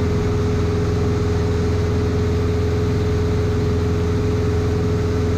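Light aircraft's engine and propeller droning steadily in cruise, heard inside the cabin: an even low hum with a steady higher tone over it.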